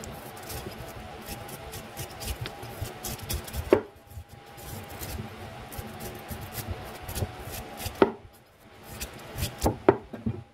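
Large kitchen knife paring the tough outer layer off a whole bamboo shoot on a cutting board: many short cutting and scraping strokes, with sharp knocks about 4, 8 and 10 seconds in. A faint steady hum runs underneath.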